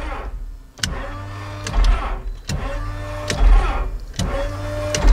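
Piper Aztec's six-cylinder Lycoming engine turned over slowly by its electric starter without firing: a whining starter that sags and recovers, with a clack a little more than once a second as each compression comes round.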